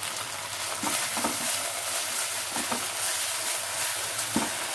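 Thick spice paste sizzling as it fries in a non-stick pan, stirred with a silicone spatula, with a few soft scraping strokes.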